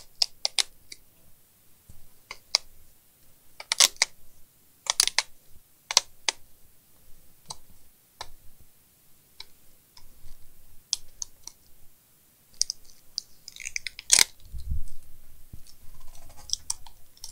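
Scattered sharp clicks, ticks and crinkles of hands working on a laptop LCD panel: peeling back the tape over its display cable connector and handling the panel. A heavier knock about fourteen seconds in.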